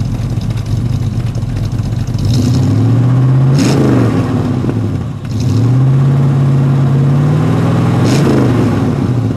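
Exhaust of a 350 Chevrolet small-block V8 through small pencil exhaust tips: idling, then revved up twice, about two seconds in and again about five seconds in, each rev held steady for a moment (the second longer) before dropping back to idle.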